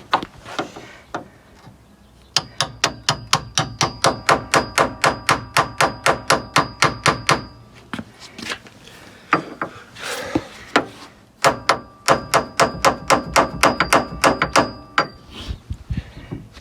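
Hammer tapping rapidly on a steel bushing removal tool, driving a worn, cracked nylon door hinge bushing out of a Jeep hinge. The taps come in two long runs of about five a second, each with a light metallic ring, and a short scrape falls between the runs.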